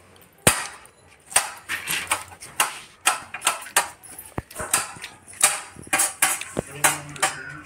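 Knife chopping onions: sharp taps of the blade on the cutting surface, irregular at about two or three a second.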